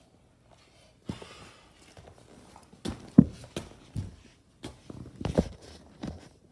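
Irregular knocks and thumps with rustling, about eight or nine of them, from the phone being jostled and handled while it is moved about and covered.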